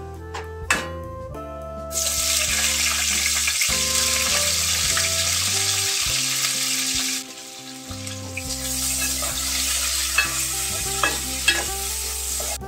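Sliced onions and green chillies dropped into hot oil in an aluminium pot, sizzling loudly from about two seconds in. The sizzle eases around the middle and picks up again as they are stirred with a spoon.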